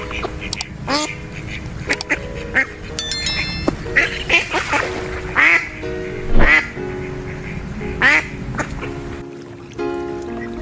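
Ducks quacking, a series of separate short calls at irregular intervals, over background music.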